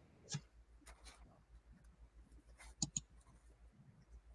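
Near silence: faint room tone with a low hum and a few soft clicks, one about a third of a second in and two close together near three seconds in.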